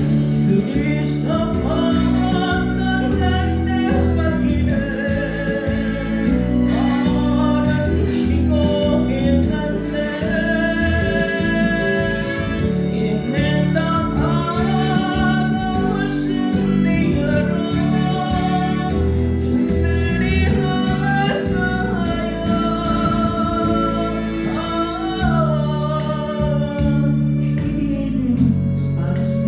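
A solo voice singing a slow Korean trot ballad over instrumental accompaniment with guitar, holding long notes with a wavering vibrato.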